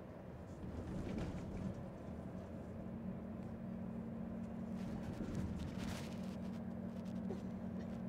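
Car driving along at speed: a steady engine hum over road rumble, with a couple of brief rushes of noise around five to six seconds in.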